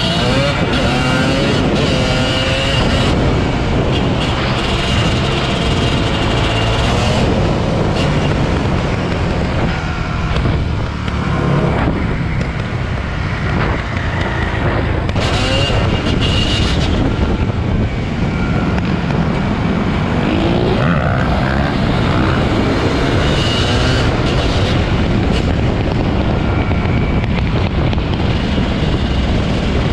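Dirt bike engines running under way, the revs rising as they accelerate through the gears near the start and again about twenty seconds in, over a steady rushing noise.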